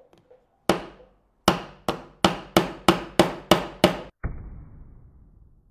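Nine sharp knocks, coming faster toward the end, as a Xiaomi 14 Pro phone is used as a hammer: its Dragon Crystal Glass screen strikes a nail head and drives the nail into a wooden board. After the last knock comes a dull, low boom that fades out over about a second and a half.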